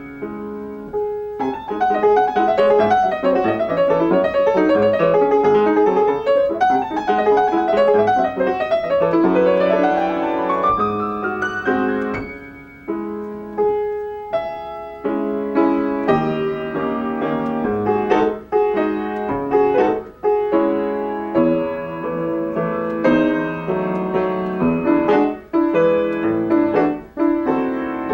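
Solo grand piano playing: fast running passages with sweeping upward runs in the first half, then about halfway through separate chords and notes with brief pauses between phrases.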